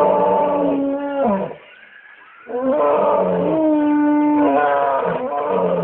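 Lion roar sound effect: a long roar that breaks off about a second and a half in, then after a short pause a second, longer roar.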